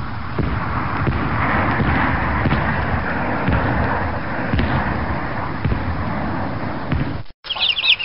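Bomb-drop sound effect: a dense barrage of explosions and thuds over a continuous rumble, cutting off suddenly near the end. High, quick chirping, like chicks cheeping, starts right after.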